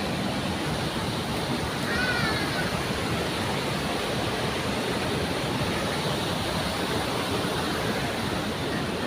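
Steady rush of flowing water from a waterfall or stream, an even, unbroken noise.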